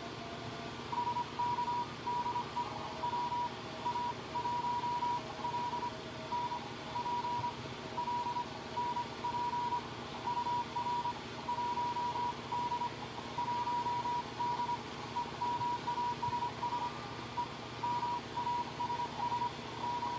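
Morse code from an amateur radio transceiver: a single high tone keyed on and off in dots and dashes over steady receiver hiss, starting about a second in, with a second, fainter and lower-pitched Morse signal coming and going.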